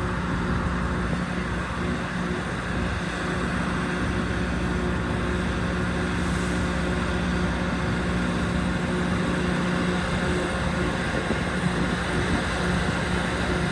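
Loram rail grinder train running, a steady mechanical drone with a strong low hum.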